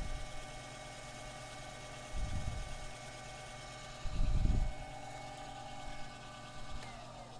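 Lathe running steadily with a whine of several steady tones, spinning a pool cue shaft while its new tip and ferrule are sanded flush with 400-grit paper. Two dull low thumps come about two and four seconds in, and near the end the motor is switched off and its pitch falls as it spins down.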